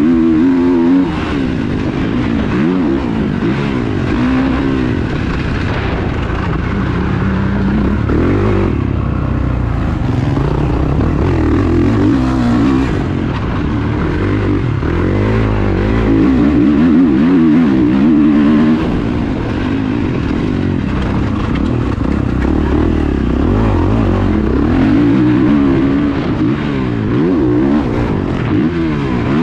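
Motocross bike engine revving hard and falling back over and over, the pitch climbing and dropping every few seconds through the whole stretch as the rider accelerates, shifts and backs off around the track, heard from an onboard camera.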